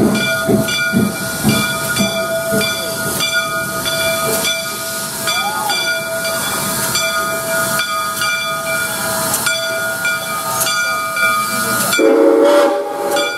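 Steam locomotive arriving slowly, its bell ringing steadily at about two strokes a second over the hiss of steam. The sound grows louder near the end as the engine draws close.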